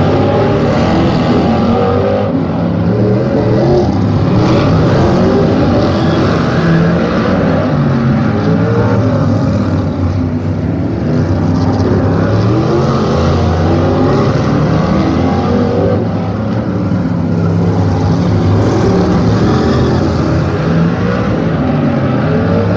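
Several winged sprint cars' V8 engines racing around the oval, loud and continuous, overlapping one another. Their pitch keeps rising and falling as the cars accelerate and back off through the laps.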